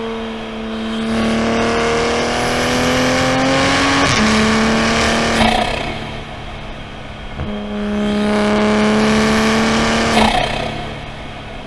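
Toyota A90 Supra's turbocharged B58 straight-six, heard from inside the car, pulling up through the revs twice. Each pull ends in a sudden drop in engine pitch, about four and ten seconds in, with a steadier stretch between. A thin high whine climbs with each pull.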